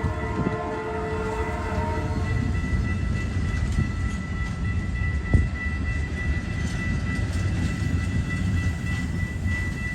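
A train passing on the rails. A horn's last notes fade out over the first couple of seconds, leaving a steady low rumble of the train rolling by, with a thin steady high tone above it and a single knock about five seconds in.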